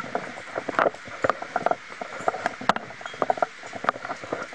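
Gusting wind with a steady hiss, and many irregular sharp clicks and knocks of loose objects rattling in it.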